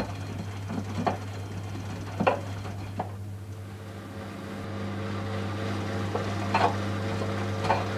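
Miele W 435 front-loading washing machine drum tumbling a pillow in the wash, water sloshing about once a second over a steady motor hum. The drum stops for a couple of seconds about three seconds in, then starts turning again and the sloshing returns.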